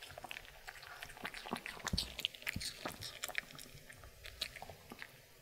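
Maltese dog chewing a piece of apple, with irregular crisp crunches. The crunching thins out near the end.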